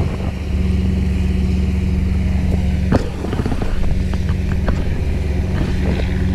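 Fishing boat's diesel engine running hard with a steady low drone, working under load to haul a grounded wooden fishing boat off into the water. A single sharp knock about three seconds in.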